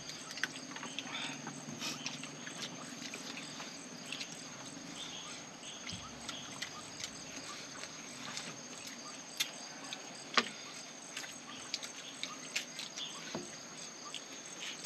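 Insects shrilling in one steady high tone, under scattered small clicks and smacks of people eating by hand, with one sharper click about ten seconds in.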